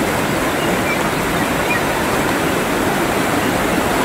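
Floodwater from a swollen river rushing steadily, an even, unbroken noise of flowing water.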